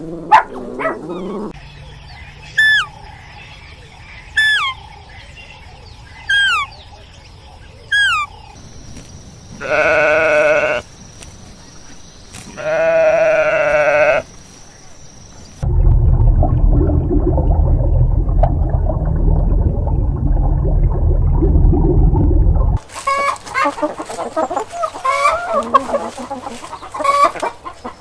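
A series of separate animal sound clips: four short falling calls about two seconds apart, then two long bleats of a goat or sheep, a loud low rumbling stretch of several seconds, and chickens clucking near the end.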